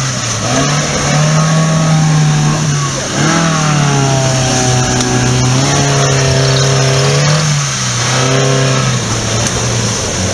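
Suzuki 4x4's engine held at high revs under load as it claws up a muddy stream bank on a tow strap, the pitch steady with short dips about three seconds and eight seconds in.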